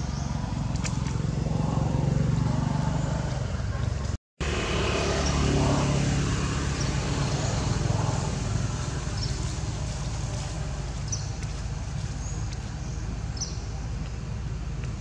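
Low rumble of passing motor vehicles, swelling and fading twice. The audio cuts out completely for a moment about four seconds in.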